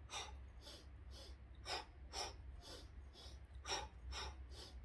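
A woman doing Warrior Breath, an intense yogic breathing exercise: short, forceful breaths about twice a second, inhaling in two parts through the nose and exhaling in two parts through the mouth.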